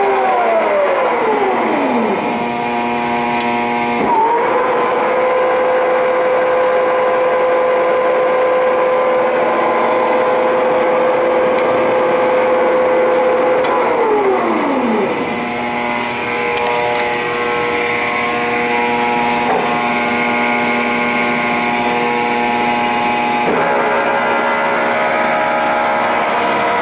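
Engine lathe running under power with a steady whine from its spindle drive. The whine winds down in pitch as the spindle coasts to a stop, twice, and jumps back up as the lathe is restarted, with sudden changes of pitch as it is run at different speeds.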